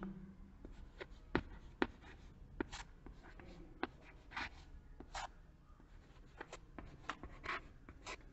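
Chalk writing on a chalkboard: faint, irregular taps of the chalk tip and short scratchy strokes as words are written.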